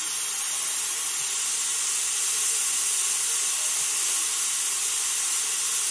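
A steady, high-pitched hiss at an even level that cuts off suddenly at the end.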